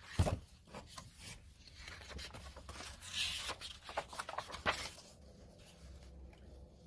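Pages of a paperback picture book turned by hand: soft paper rustling and flapping, with a sharp tap about a quarter of a second in and a few lighter clicks up to about five seconds in.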